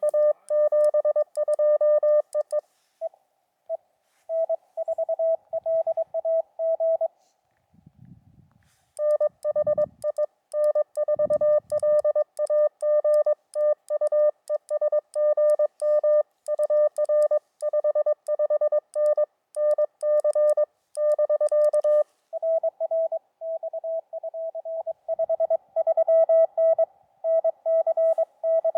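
Morse code (CW) tones from a portable ham radio, keyed on and off in quick dots and dashes. Two Morse signals of slightly different pitch take turns, with a short pause about eight seconds in.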